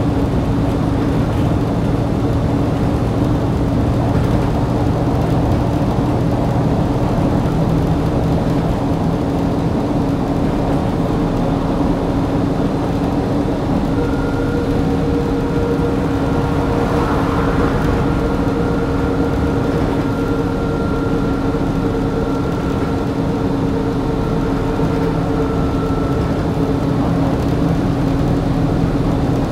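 Volvo B7TL double-decker bus's diesel engine and drivetrain running, a steady drone heard inside the lower deck. About halfway through, a thin whine joins in for around ten seconds.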